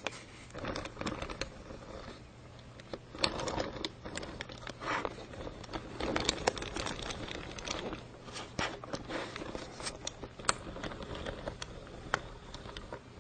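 Irregular handling noises: scattered clicks, knocks and scraping with some crinkling, coming in uneven clusters.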